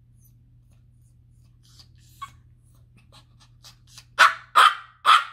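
Small Morkie (Maltese–Yorkshire terrier) puppy giving three sharp little barks about half a second apart near the end, after a few faint short sounds build up. These are demand barks from a dog waiting to be given food.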